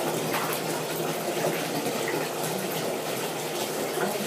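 Bathwater splashing and sloshing as a small mini dachshund puppy, held up by hands, paddles its legs in a full tub: an irregular patter of small splashes over a steady wash of water.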